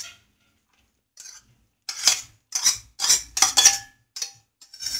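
Metal spoon scraping and clinking against bowls in a run of short strokes as grated bottle gourd is spooned into a plastic mixing bowl, with a few brief metallic rings.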